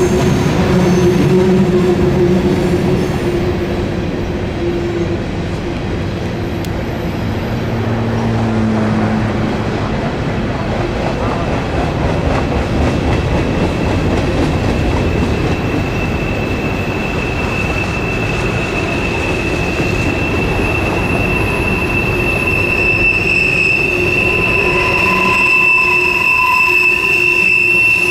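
Freight train cars rolling past with a steady rumble of wheels on rail. About halfway through, a high, steady wheel squeal comes in and grows louder.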